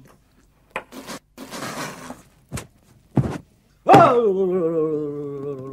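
Film-trailer sound effects: a few short sharp knocks and a brief rushing noise, then just before four seconds a loud held tone that drops in pitch at its start and then holds with a slight waver, part of the trailer's eerie score.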